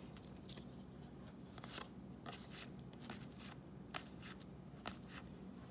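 Baseball trading cards being flipped through by hand, one slid behind another: faint, irregular soft swishes and ticks.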